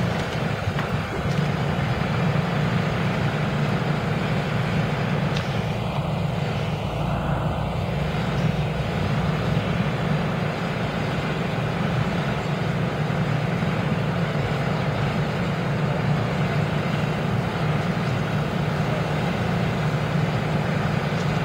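A motor vehicle's engine running steadily: a constant low hum under a noisy hiss that does not change.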